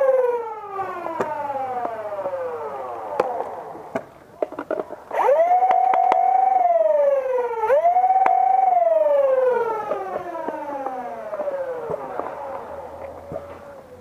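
Flywheel motors of the Dualstage Swordfish, a home-built two-stage Nerf flywheel blaster, whining as they wind down. They rev up again about five seconds in, dip and rev once more, then wind down slowly. Sharp clicks come now and then.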